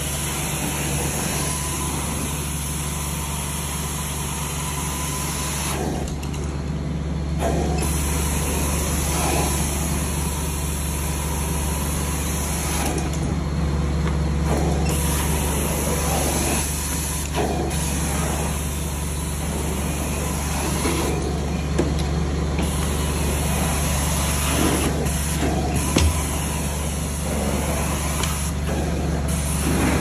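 Carpet extraction wand in hot-water ('steam') cleaning, drawing suction across the carpet as it is pushed in strokes: a steady low machine drone under a loud rushing hiss. The hiss drops away for a moment several times as the strokes change, and there is a single knock near the end.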